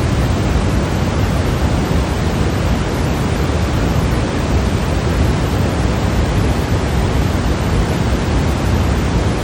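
Steady, unchanging electronically generated white noise for sleep, an even hiss weighted toward the low end.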